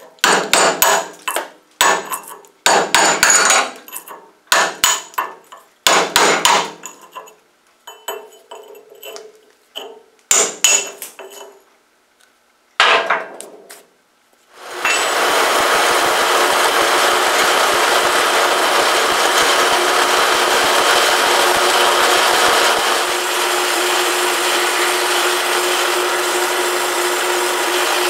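Quick runs of hammer blows on steel, knocking slag off the flame-cut edge of a hot-rolled mild steel block, for about the first fourteen seconds. Then a metal-cutting bandsaw cuts through the block with a steady running noise, and a steady hum joins it about 23 seconds in.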